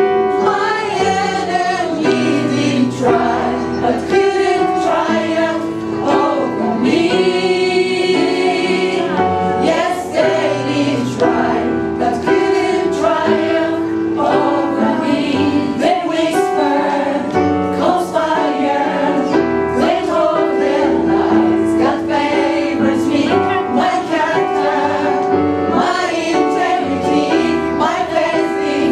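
Live gospel song with a lead voice and choir singing over band accompaniment with a steady beat.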